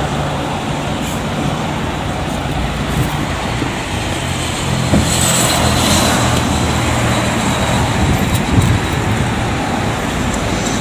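Street traffic: a steady low engine hum under road noise, with a car and a motorcycle passing close by about five to six seconds in.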